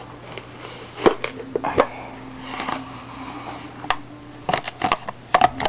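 Loose screws rattling and clicking inside the opened plastic housing of a Sunbeam drip coffee maker as it is handled, with scattered knocks and a quick run of clicks near the end.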